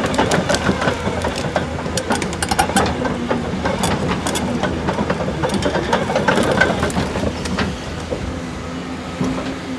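Custom Cat 330 tilter excavator at work: its diesel engine runs steadily under many sharp cracks, snaps and clanks, the sound of the machine breaking through wood and brush.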